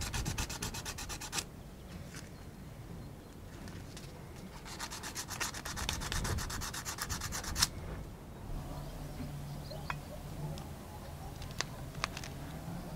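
Sandpaper rubbed rapidly back and forth by hand along the edge of a metal spoon-lure blank, in two spells of quick, even strokes, about eight a second, with a pause between them. A few faint clicks of handling follow near the end.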